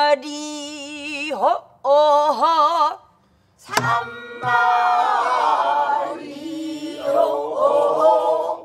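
A woman sings a pansori phrase solo with wide, wavering vibrato. A single stroke on a buk barrel drum comes just before four seconds in, and then the class sings the phrase back together in unaccompanied unison.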